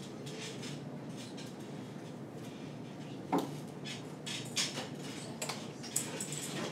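Classroom room tone: a steady low hum with scattered small knocks, clicks and rustles from the room, the loudest a single thump about three and a half seconds in.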